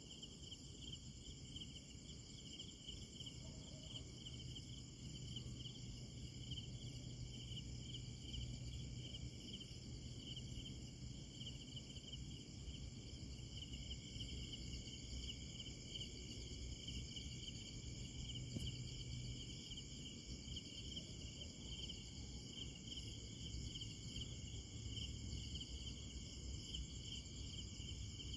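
Crickets trilling continuously: several insects at different pitches overlapping into a steady, faint night chorus, with a low rumble underneath.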